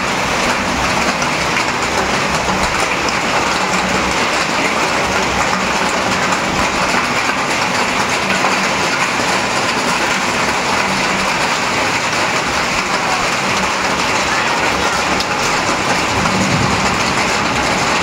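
Heavy downpour with hail, a steady, dense rush of rain and hailstones pelting down without let-up.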